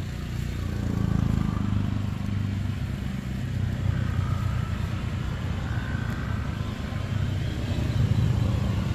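A motor running steadily with a low, even rumble.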